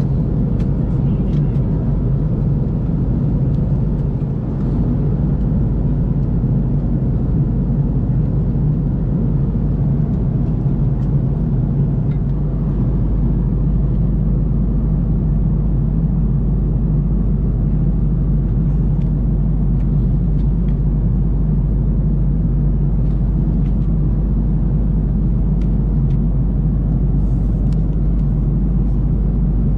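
Steady low rumble of an Airbus A330-300 cabin in cruise, the engine and airflow noise as heard from an economy seat, with a few faint small clicks over it.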